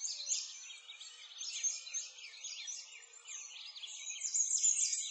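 A dense chorus of songbirds chirping and trilling, many quick high chirps overlapping, growing louder near the end.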